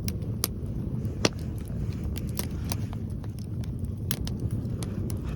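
Log bonfire crackling, with many sharp, irregular pops, one louder snap about a second in. Strong wind rumbles on the microphone throughout.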